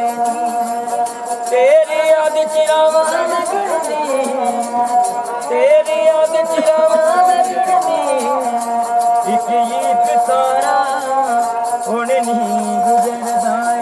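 A ravanahatha-style bowed folk fiddle plays a melody of long held notes that slide and waver in pitch, over a regular, quick jingling rhythm.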